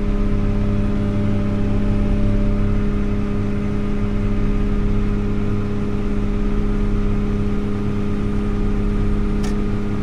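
Combine harvester running steadily, heard from inside its cab while it unloads soybeans through its auger: an even drone at a constant pitch with a low hum and several held tones.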